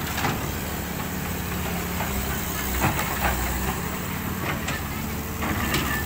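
Diesel engine of a Caterpillar tracked excavator running steadily, with several short knocks and scrapes as the bucket works through a pile of crushed stone.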